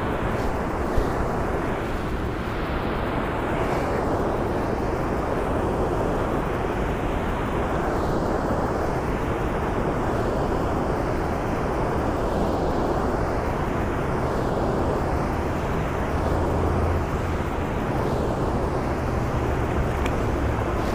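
Steady rush of water pouring through a small dam's sluice gates, with one brief knock about a second in.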